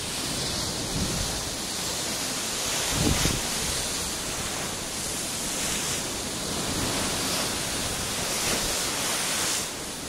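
Atlantic surf breaking and churning against the foot of a rocky sea cliff, heard from high above as a steady wash of noise, with a brief low gust of wind on the microphone about three seconds in.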